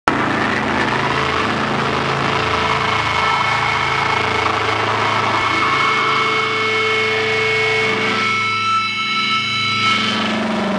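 Electric guitar and bass through amplifiers holding a loud, sustained, distorted drone with several steady ringing tones and no drumbeat. About eight seconds in the low rumble drops away and higher ringing tones come through, before the drone fills back in near the end.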